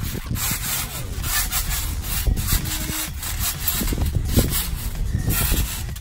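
Trampoline mat and springs creaking and rubbing under the repeated, uneven bounces of two jumpers, over a steady low rumble.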